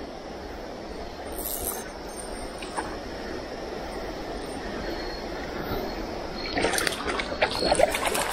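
Shallow stream water running steadily. In the last couple of seconds comes a flurry of splashes and knocks as a hooked smallmouth bass is landed by hand in the shallows over the pebbles.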